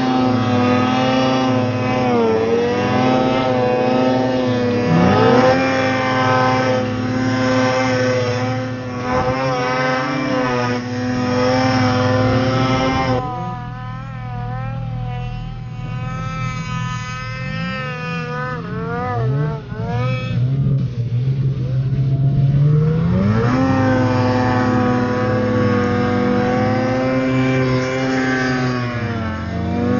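Ski-Doo Summit X snowmobile's two-stroke engine with a tunnel-dump exhaust, held at high revs. About halfway through it drops to a lower, wavering speed, then revs back up with a rising pitch for the last several seconds.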